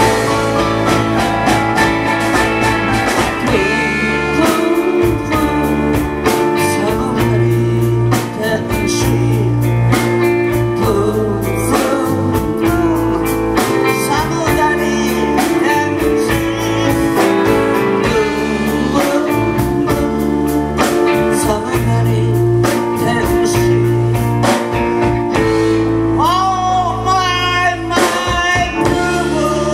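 Live rock band playing a song: a man singing over electric guitars, electric bass, keyboard and drums.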